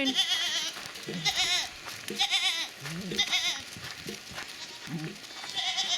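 Goats bleating repeatedly: about five separate high calls with a quavering pitch, roughly one a second, mixed with a few shorter, lower calls.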